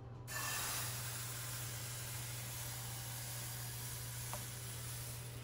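Thin pandan crepe batter sizzling as it hits a hot, oiled frying pan and is swirled to spread it. The hiss starts suddenly just after the start and slowly eases off.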